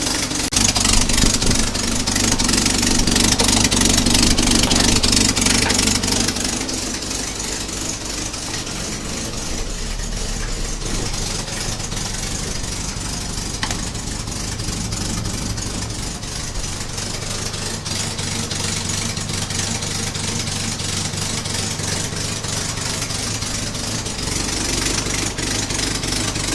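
Willys CJ3A's four-cylinder flathead engine running as it warms up. It is louder for the first six seconds or so, then settles to a steady idle.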